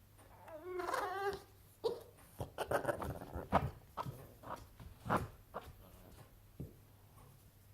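Boston Terrier moaning in a wavering, gobble-like whine, then a quick run of short sharp huffs: complaining because his toy is out of reach under the sofa.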